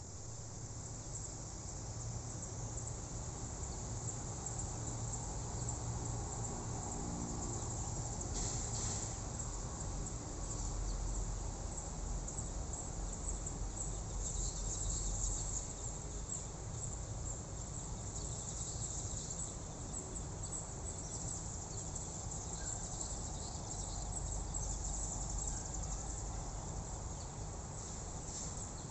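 Steady high-pitched chorus of insects trilling, with a low rumble underneath.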